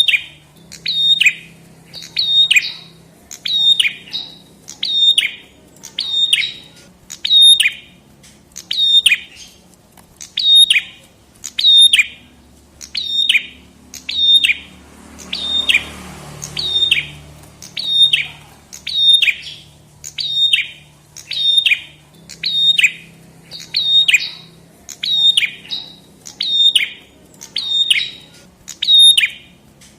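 Prenjak kepala merah (red-headed prenjak) calling over and over, about once a second. Each call is a short, sharp note that drops quickly in pitch.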